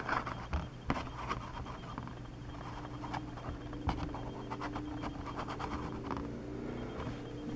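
Fingers handling and turning a Riddell pocket-size plastic mini football helmet on a tabletop: quiet scratching and rubbing with a few small clicks.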